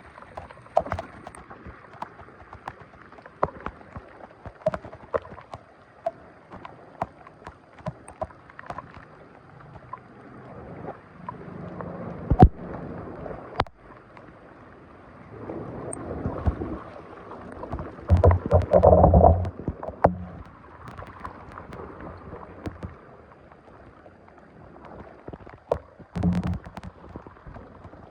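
Water splashing and sloshing, with many scattered sharp knocks and clicks. The splashing grows louder about two-thirds of the way through.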